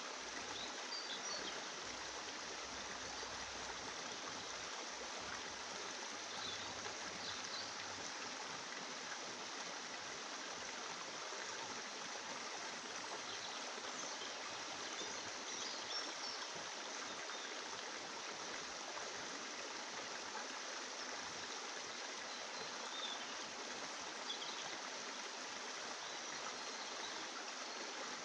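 Steady rushing of flowing water, like a stream, with faint high chirps now and then.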